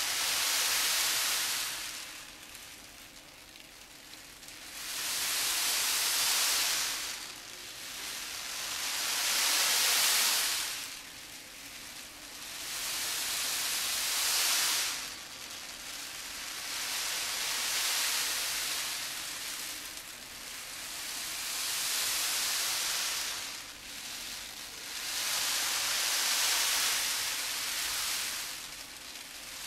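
Azuki beans shifted back and forth so they roll and rustle together, the classic Japanese stage imitation of waves. The hiss swells and ebbs in slow surges about every four seconds, like surf washing in and drawing back.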